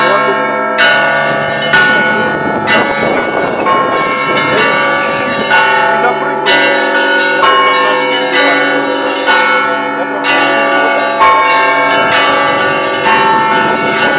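Russian Orthodox church bells ringing a peal (zvon): a heavy stroke falls about once a second over a continuous chiming of smaller bells, and the tones hang on and overlap one another.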